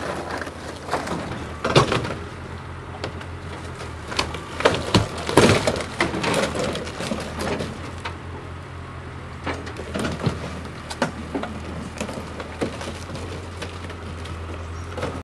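Fibreglass and wood of a Sea Ray cabin cruiser cracking, splintering and crunching as an excavator breaks it apart, over the excavator's steady engine hum. There is a heavy crunch about two seconds in, a dense run of cracking around the middle, and scattered snaps later.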